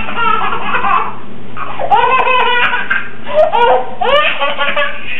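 A baby laughing hard in repeated bursts of high-pitched giggles.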